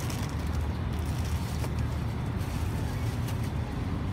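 Steady low rumble of outdoor street-market background noise, a mix of passing traffic and crowd, with no single sound standing out.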